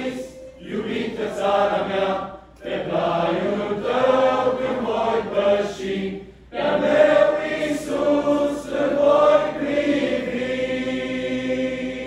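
Men's choir singing a Romanian hymn in phrases with short breaths between them, with accordion accompaniment; the last phrase is held near the end.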